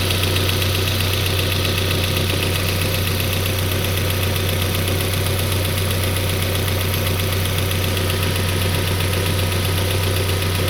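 Peugeot 407's 2.2-litre petrol engine idling with a fast, even ticking knock over the idle. The knock appears on a cold engine, and the owner suspects the camshaft phaser (VVT actuator).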